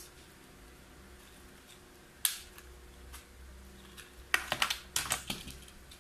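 Hard plastic clicks from Beyblade top and launcher parts being handled and snapped together: one sharp click about two seconds in, then a quick run of several clicks a little past halfway.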